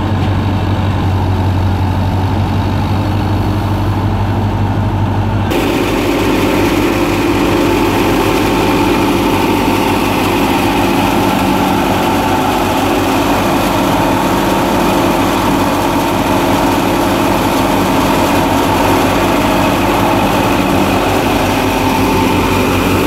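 Tractor-driven wheat thresher running steadily with the tractor's diesel engine droning under it. About five seconds in the sound changes abruptly to a closer, fuller hum with a hiss over it as sheaves of wheat are hand-fed into the thresher's drum.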